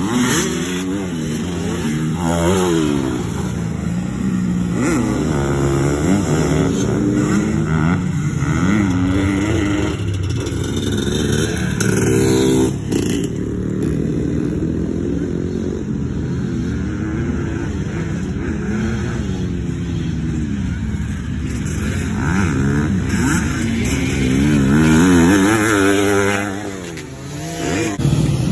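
Motocross dirt bikes revving around a dirt track, engine pitch climbing and dropping again and again as the riders work through the gears. The loudest pass comes near the end.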